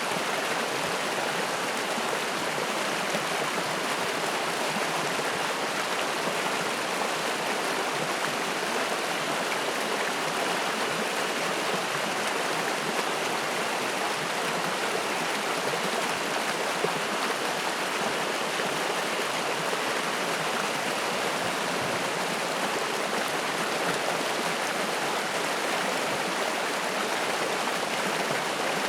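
Spring-fed mountain stream running over rocks: a steady, even rush of water.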